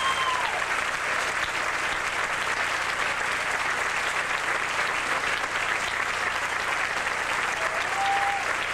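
Audience applauding steadily, with a brief cheer near the end.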